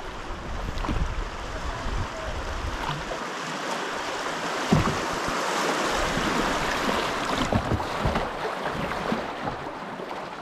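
Fast river water rushing and churning around a canoe as it runs a small rapid, growing louder through the middle of the run, with a sudden thump about halfway.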